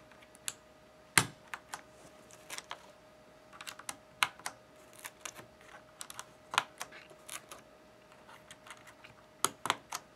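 Plastic keycaps being pressed onto the Cherry MX switch stems of a mechanical keyboard, one at a time: irregular sharp clicks and taps, with a quick cluster near the end.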